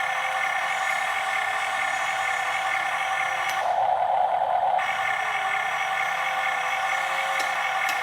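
Electric motors and gears of a Huina remote-controlled toy excavator whining steadily, with a louder, deeper stretch of about a second midway.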